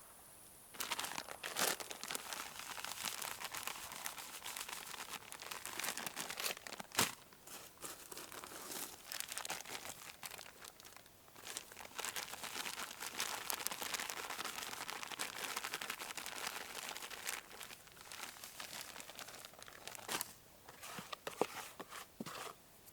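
Continuous crinkling and rustling with scattered sharp clicks, the sound of something being handled close up.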